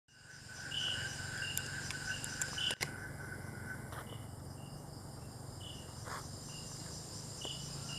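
Crickets and other night insects calling steadily, several overlapping trills at different pitches; one of the trills drops out about halfway and returns near the end. A single sharp click about three seconds in.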